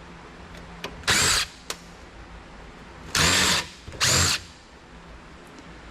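Cordless power screwdriver or drill-driver whirring in three short bursts, each under half a second, backing out screws from a computer case, with a couple of faint clicks between the bursts.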